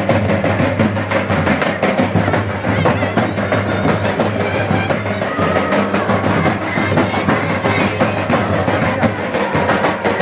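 Live folk drumming by barrel drums and a stick-beaten frame drum, a dense, unbroken beat.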